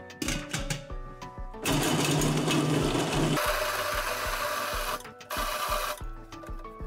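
Electric stainless steel food chopper starting about two seconds in and running for about three seconds while its blade finely minces whole peeled onions, then stopping. Background music with a steady beat plays throughout.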